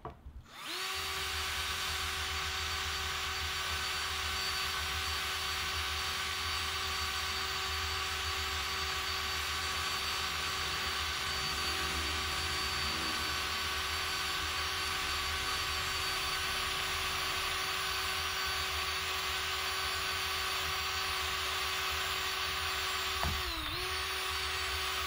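Ryobi cordless drill spinning a fine wire brush wheel against the live edge of a reclaimed wood board, scrubbing off bark and loose wood fibres: a steady motor whine over a scratchy hiss. It starts up about a second in, and its pitch dips briefly near the end.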